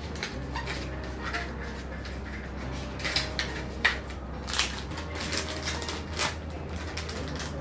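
Small clear plastic pouch being handled and opened: a few short, soft crinkles and crackles spread over several seconds.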